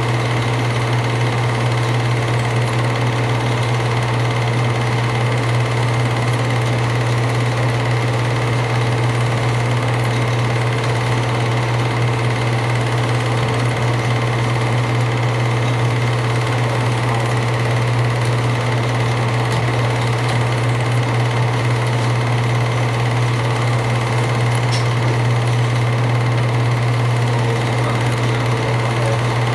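8mm movie projector running: a steady, unchanging mechanical whirr with a strong low hum.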